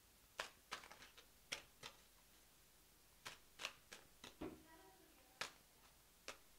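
Tarot cards being handled and laid down on a table: a dozen or so short, sharp card flicks and taps at irregular intervals.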